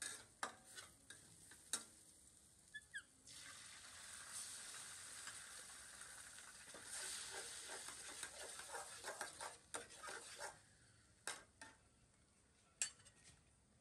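Beaten egg sizzling in hot oil in a steel wok on a portable gas stove, with metal spatula clinks and scrapes against the pan and bowl. The sizzle starts about three seconds in and dies down about ten seconds in, leaving a few clinks.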